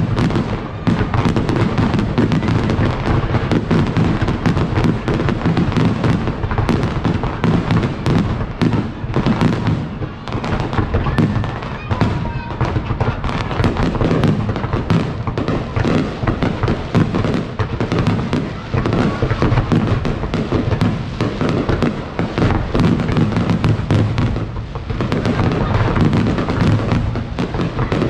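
Fireworks display: a dense, continuous barrage of bursts and crackling with deep booms underneath, with only brief lulls.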